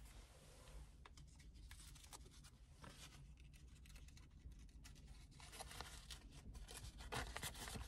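Faint rustling and creasing of a brown paper sandwich wrapper being folded by hand, over a low steady hum; the rustles come more often near the end.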